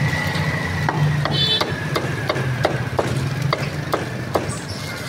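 Cleaver chopping roast pork on a thick round wooden chopping block: about a dozen sharp, even chops, roughly three a second, over a steady low hum.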